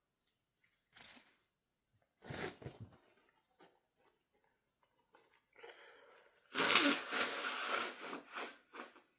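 A man sneezes about two seconds in, with a short burst of breath and voice, after tickling his nose with a bobby pin to bring it on. Near the end comes the loudest sound, about two seconds of hard nose blowing.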